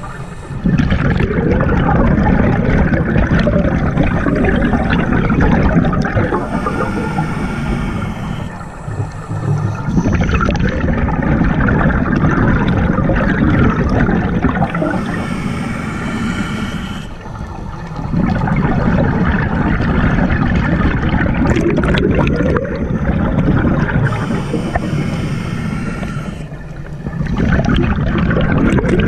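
Scuba diver breathing through a regulator underwater: long stretches of bubbling exhaled air, each followed by a short hiss of inhalation, in a slow cycle of about one breath every nine seconds.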